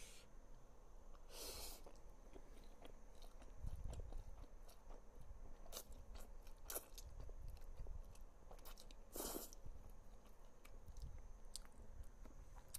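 A person eating thick instant ramen noodles close to the microphone: chewing with small wet mouth clicks, and two short louder sounds about a second and a half in and near nine seconds in.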